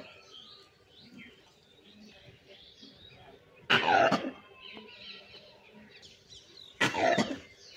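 Gray langur giving two short, harsh, cough-like barks about three seconds apart, each with a falling pitch. Small birds chirp faintly in between.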